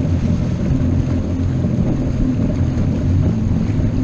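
Motorboat engine running steadily, a low drone with an even hiss over it.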